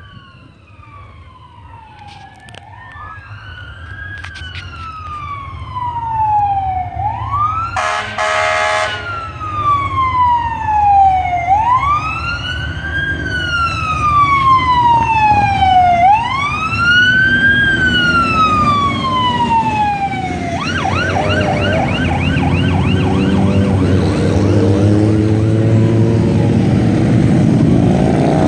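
Fire engine siren wailing in slow rising and falling sweeps, growing louder as it approaches, with a short horn blast about a quarter of the way in. Past the midpoint the siren switches briefly to a fast yelp, then gives way to the engines of a line of big touring motorcycles rumbling past, louder near the end.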